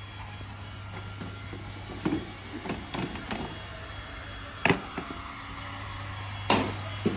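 Handheld heat gun blowing with a steady hiss, with a low hum underneath. Several sharp knocks and clicks cut through, the loudest two a little before and after the middle.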